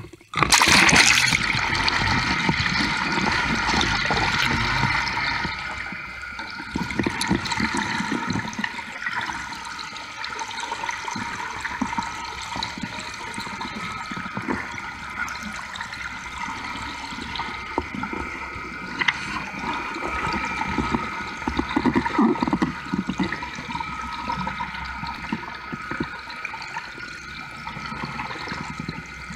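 Water rushing and churning over a camera plunged into the sea from a moving boat, starting with a splash as it goes in about half a second in and easing a little after about six seconds. A steady hum from the boat's engine and propeller runs underneath.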